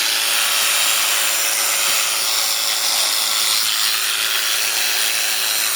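Electric sheep shears running steadily, a continuous motorised buzz.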